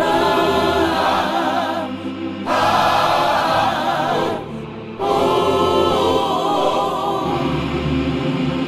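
Music: a choir singing long, sustained phrases with vibrato, with short breaks about two seconds and four and a half seconds in.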